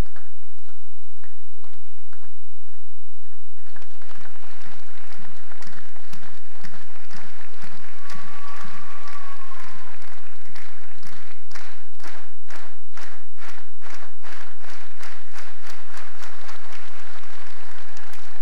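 Large audience clapping in a steady rhythm, with cheering swelling from about four seconds in.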